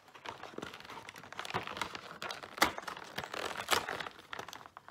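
Cardboard door of a Kinder advent calendar being pried open and a foil-wrapped chocolate egg worked out of its slot: crinkling and rustling with many small clicks, the sharpest about two and a half and three and a half seconds in.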